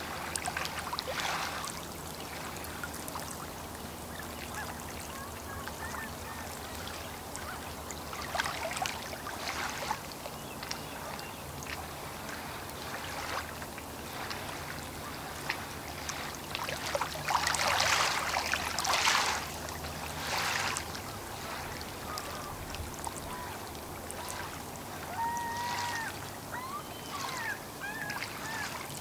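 Small waves lapping and splashing against the lakeshore in irregular bursts, loudest a little past the middle. Birds call faintly, more clearly near the end.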